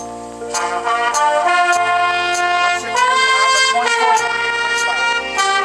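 Brass-led rock music with a horn section and steady drum hits, played loud through the car's ELS Studio surround sound system; it cuts off abruptly at the end.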